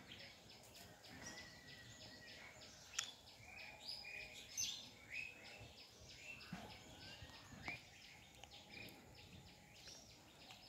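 Faint woodland ambience of small birds chirping, with short high calls bunched in the middle, over a fast, even, high-pitched ticking. A sharp click comes about three seconds in.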